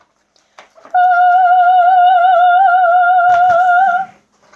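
A single high note sung and held for about three seconds with an even, wavering vibrato, in a mock-operatic style.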